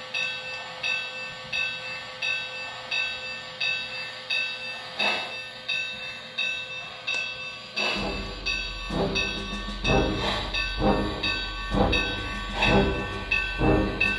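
Lionel LionChief+ 2-8-2 Mikado O-gauge locomotive's onboard sound system playing steam chuffs in an even rhythm, about three every two seconds. About eight seconds in the chuffs grow louder and fuller, joined by a steady low hum.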